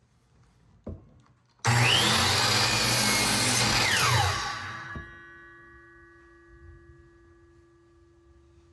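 Delta Cruzer 10-inch miter saw starting up with a rising whine, then cutting through wood for about two and a half seconds, then winding down with a falling whine. A click comes just before it starts, and a faint steady hum remains after it stops.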